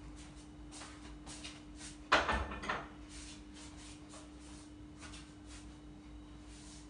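A short, sharp clatter of kitchen things being handled, about two seconds in, with a few fainter knocks, over a faint steady hum.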